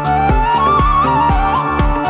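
Live looped folk-fusion music: a steady kick-drum beat about twice a second under a held drone, with an ornamented, gliding melody line on top.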